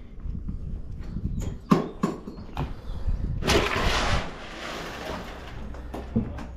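Wet fish being handled and laid down on wooden planks: a few sharp knocks and slaps about two seconds in, a longer rustle about halfway through, and one more knock near the end, over a steady low rumble.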